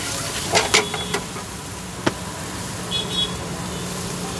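Chopped onions sizzling in oil in an iron frying pan on a gas burner as a spatula stirs them, over a steady low hum. The spatula scrapes and knocks against the pan a few times about half a second in, with one sharp knock about two seconds in.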